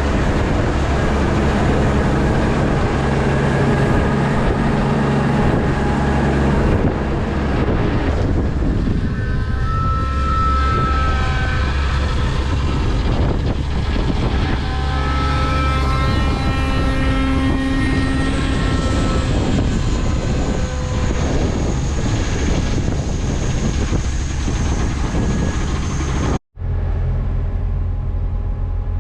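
Tractor engine running steadily under load, a continuous low drone heard from the cab while hauling a loaded grain cart. Near the end the sound cuts out for an instant and comes back with a different, thinner drone.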